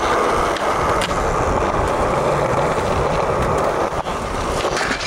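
Skateboard wheels rolling over concrete: a steady, loud rolling noise, with a couple of sharp clicks from the board.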